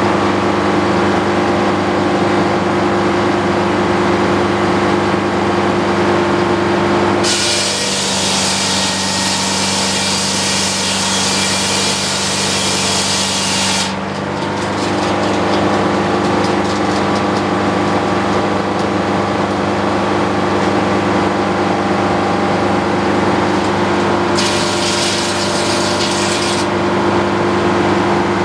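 Antique circular sawmill running steadily, with its power unit humming. Twice the blade is heard cutting through a utility-pole log: a long cut of about seven seconds starting about a quarter of the way in, then a short one of about two seconds near the end.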